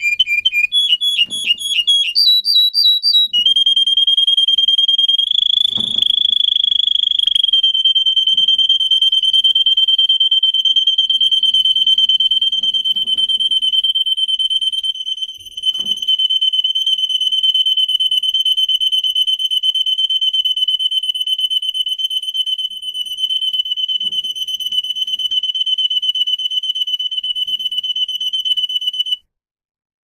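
Domestic singing canary: a few quick runs of repeated notes that step up and down in pitch, then one long, steady high rolling trill held for over twenty seconds, cut off abruptly near the end.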